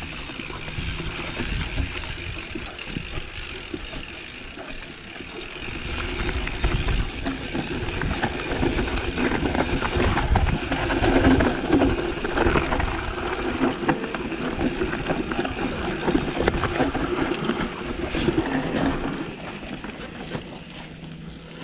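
Mountain bike riding over a dirt forest trail: tyres on the ground and the bike rattling and clattering over bumps, with wind rumble on the microphone. It grows louder and busier through the middle, then eases near the end.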